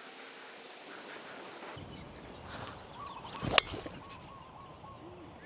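A single sharp crack of a golf club striking the ball about three and a half seconds in, over wind noise on the microphone, with faint bird calls around it.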